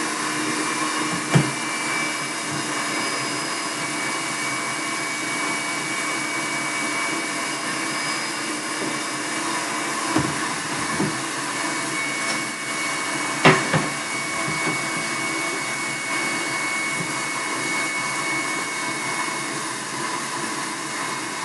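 Electric stand mixer running steadily, its whisk beating Italian meringue while it cools. A few sharp knocks about a second in, around ten seconds in, and a louder one near the middle.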